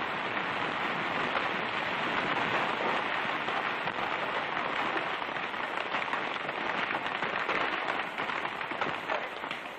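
Dense crackling hiss of river water and debris from a dynamite blast raining back down, holding steady and easing a little near the end.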